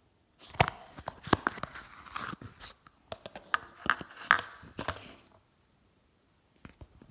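Slime being squished and worked by hand, giving a dense run of crackling pops and clicks that stops after about five seconds.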